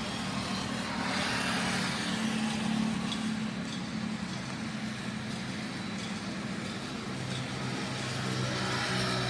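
John Deere three-cylinder tractor diesel engine idling steadily.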